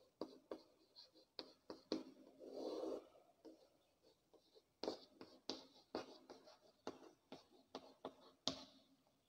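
Chalk on a chalkboard while a line of words is handwritten: a quick irregular run of sharp taps and short scrapes, with one longer scratchy stroke about two and a half seconds in.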